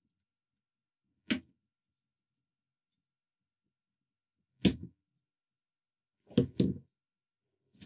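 Short, sharp clicks and knocks from the cassette deck's door mechanism as it is handled and levered off its hinges. There are five in all: one about a second in, one near the middle, a quick pair later on, and a faint one at the end.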